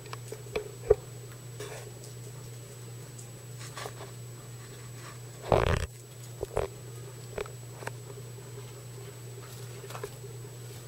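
Guinea pigs eating and shuffling in hay close by: scattered small clicks, crunches and rustles, with one louder rustling knock about five and a half seconds in, over a steady low hum.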